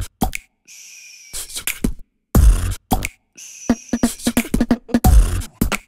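Outro music: a choppy beatbox-style beat of sharp percussive hits and heavy kicks, broken by short silent gaps.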